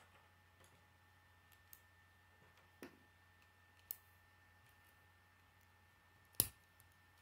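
K'nex plastic construction pieces clicking as a wheel is fitted onto the model car: a few sparse light clicks, then one sharper, louder snap about six seconds in.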